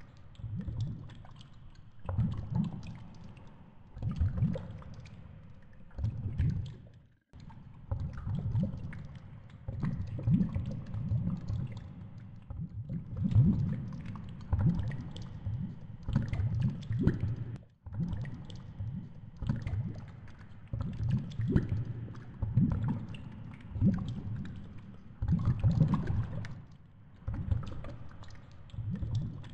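Water rushing and gurgling against a GoPro's underwater housing as it hangs on a fishing line, in irregular low surges with scattered clicks and ticks. The sound cuts out abruptly twice.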